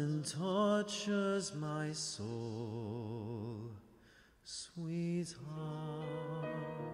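A low voice singing slowly and unaccompanied, drawing out long notes with a wide vibrato, with short breaths between phrases.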